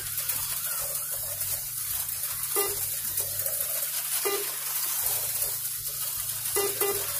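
HO slot cars running flat out around the track: a steady high whirring hiss of their small motors and pickups on the rails. Short electronic beeps from the lap counter come four times, two of them close together near the end.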